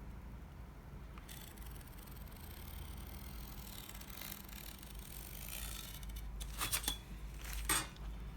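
Sheets of paper rustling and sliding as they are handled, followed by a few sharp clicks or snaps near the end, the last the loudest.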